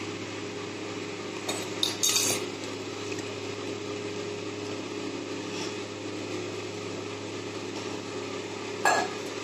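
A kitchen utensil clinking against a dish a few times, about two seconds in and again near the end, over a steady low hum.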